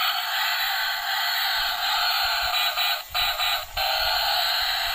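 Battery-operated toy cement mixer truck switched on, playing its built-in electronic sound effect through a small, tinny speaker, with two brief breaks about three seconds in.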